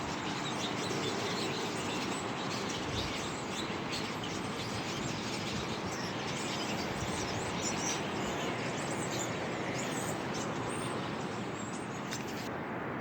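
A huge flock of small birds chirping and chattering all at once, a dense steady din of many overlapping short calls.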